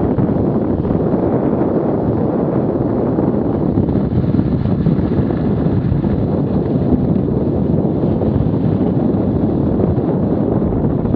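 Wind buffeting the microphone of a Garmin VIRB action camera as the skier runs downhill: a steady, loud rumble.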